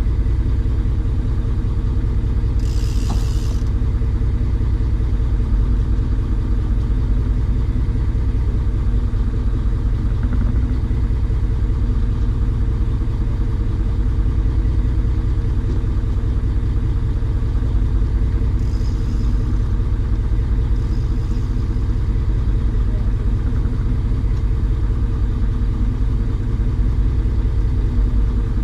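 An engine running at a steady speed, a constant low drone that never changes pitch, with a brief hiss about three seconds in.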